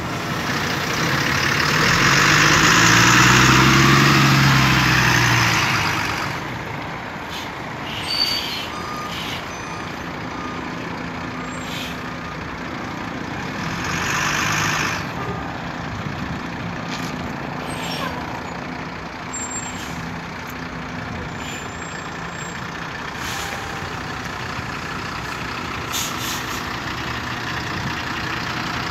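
Diesel city bus engine in a bus depot. About a second in, it rises and falls in pitch over some five seconds with a loud hiss. A short hiss of air comes near the middle, and the engine idles steadily afterwards with scattered clicks.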